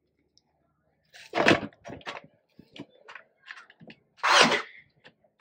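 Two loud, short thuds, one about a second and a half in and one past four seconds, with scattered small clicks and knocks between them: handling noise of work on an aluminium ladder.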